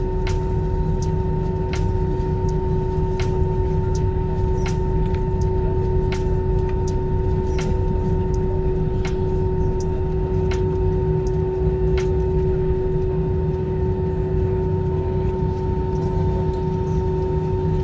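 Airliner cabin noise after landing: a steady low rumble with a constant two-pitched whine, and sharp clicks now and then.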